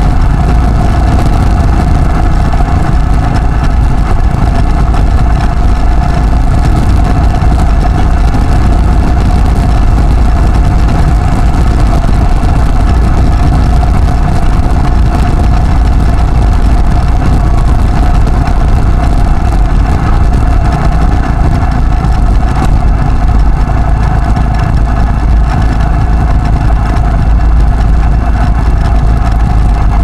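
Steady road noise from a moving vehicle: engine drone and heavy wind rumble with a steady mid-pitched hum, unchanging in level.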